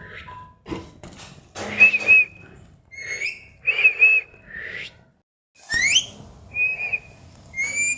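Pet parrot whistling: a series of short warbling whistles and a couple of quick rising whistle calls, with a brief pause in between.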